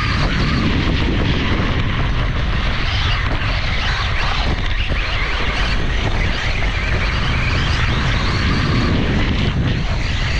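Onboard sound of a Losi Promoto MX, a 1/4-scale electric RC motocross bike, riding over dirt and dry grass: steady wind rumble on the camera's microphone with the brushless motor's whine rising and falling as the throttle changes.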